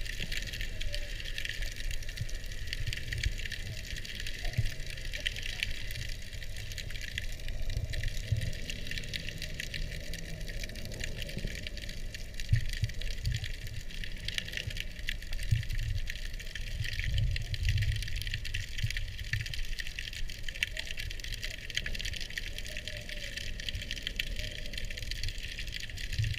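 Muffled underwater sound picked up by a submerged camera: low, irregular rumbling of moving water, with a steady crackling hiss of fine clicks above it.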